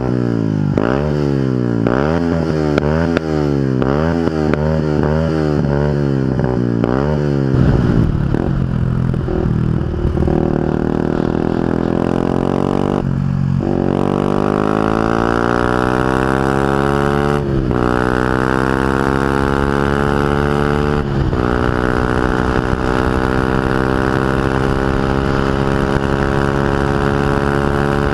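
Yamaha WR125X 125 cc single-cylinder four-stroke with an Arrow full exhaust system. It is revved in quick throttle blips, about ten in seven seconds. It then accelerates, pitch climbing, shifts up three times, and holds steady at high revs.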